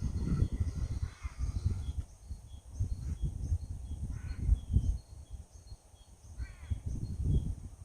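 Irregular low rumbling of wind buffeting the microphone, with three short animal calls about a second in, near the middle and near the end.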